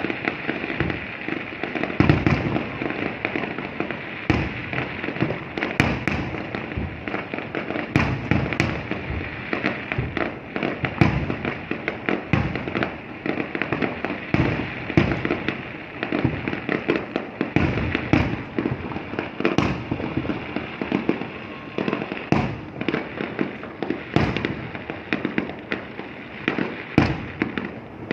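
Fireworks going off without a break: a dense run of sharp bangs, often more than one a second, over a continuous crackling rumble.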